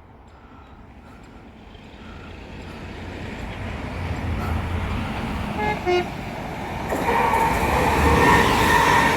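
Diesel locomotive approaching and growing steadily louder, giving two short horn notes, high then low, about six seconds in, then running close with a loud steady rumble and ringing tones.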